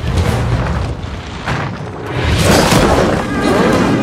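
Dramatic film score over deep booming hits and rumble; about two seconds in, a loud rushing crash surges up as the music swells.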